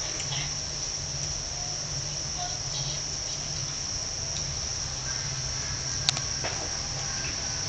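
Steady high-pitched insect drone, with a low hum underneath and a single sharp click about six seconds in.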